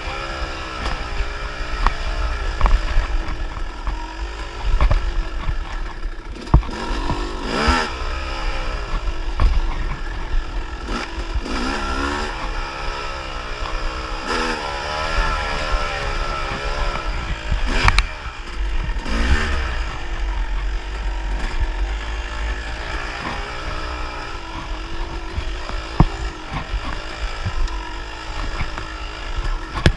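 Yamaha YZ250 two-stroke dirt bike engine revving up and down over and over as the bike is ridden hard along a dirt trail, with low wind rumble and sharp knocks and rattles from the bike over bumps.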